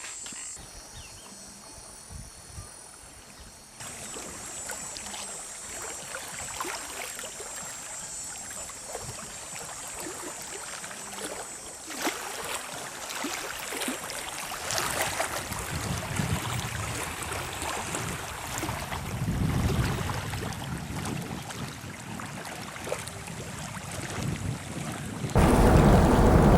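Wind on the microphone over waves on the lakeshore, with faint insects chirping in the first few seconds. Near the end it jumps suddenly to a much louder, steady rush.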